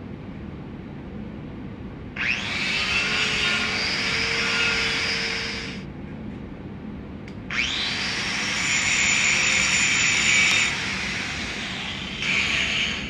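Handheld angle grinder spinning up and grinding on a steel weld test plate in three bursts: a long one starting about two seconds in, another of about three seconds, and a short one near the end. Each burst starts with a brief rising whine.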